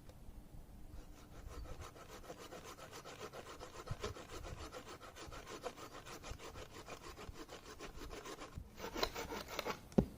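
Fast, even rasping strokes, growing louder near the end, with a sharp knock just before they stop.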